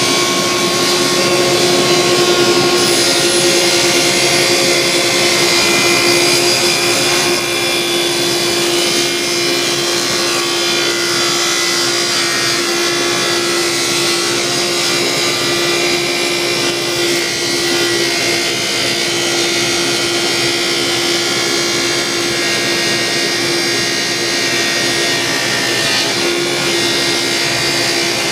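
Table saw running and ripping a pine 2x4 lengthwise to 3 inches: a loud, steady whine with a constant hum, a little louder during the first several seconds.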